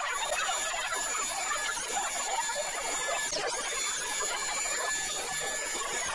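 Electric air blower running steadily with a high whine and rushing air, the whine dipping briefly in pitch twice.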